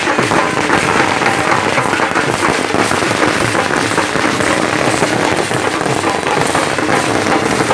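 Several hand-played barrel drums beaten fast and loud in a dense, continuous clatter of strokes.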